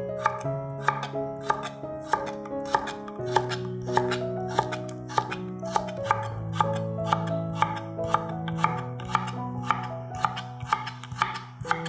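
Chef's knife slicing cucumber strips on an end-grain wooden cutting board, each cut a sharp knock on the board, about two to three a second in an even rhythm. Background music with held notes plays under the cutting.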